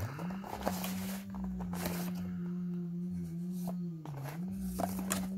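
A man humming one steady low note that dips briefly about four seconds in, over the clicks and rustle of a cardboard box and its packaging being opened by hand.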